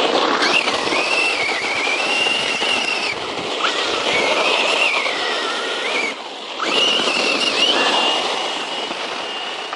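Circuit Thrash 1/10-scale RC truck driving hard on its brushless motor: a high motor whine that rises and falls with the throttle over a rushing tyre-and-ground noise. It drops off briefly about six seconds in, then picks up again.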